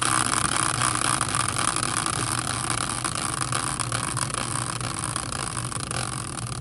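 Hand-spun caster wheel whirring steadily on its bearing as it spins freely, slowly growing quieter as it winds down.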